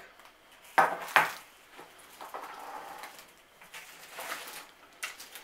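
A tin can set down on a wooden table, two quick knocks about a second in, followed by the rustle of a burlap sack being rummaged through.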